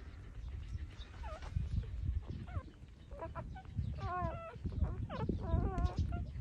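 Newborn puppies squeaking and whimpering while nursing: a run of short, high, wavering squeaks that grow more frequent in the second half, over low rustling and bumping from the litter.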